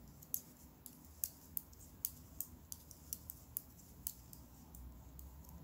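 Knitting needles clicking lightly as stitches are worked, in small irregular clicks about two or three a second.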